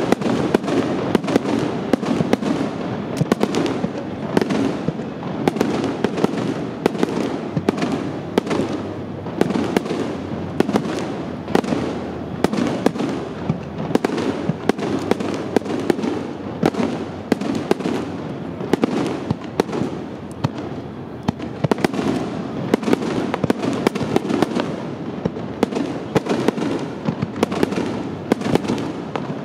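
Aerial fireworks bursting in a dense, continuous barrage: many sharp bangs in quick succession over a steady rumble of overlapping explosions.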